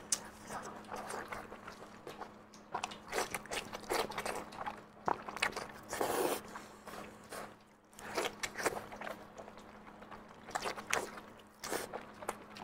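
Close-up chewing and biting of sweet-and-spicy sauced pork intestine: irregular wet, sticky mouth sounds and squelches with short pauses between them. A faint steady hum runs underneath.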